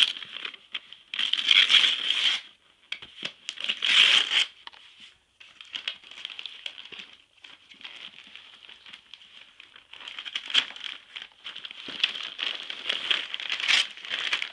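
Wrapping paper being torn and crumpled as a large present is unwrapped: several loud rips in the first few seconds, quieter rustling in the middle, then more tearing and crinkling near the end.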